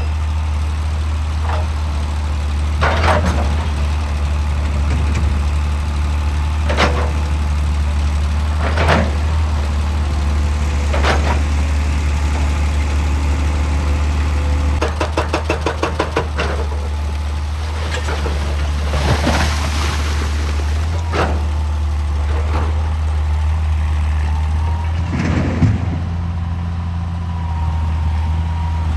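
Excavator diesel engine running steadily, with sharp knocks of rock and steel every few seconds and a brief rapid rattle about halfway through.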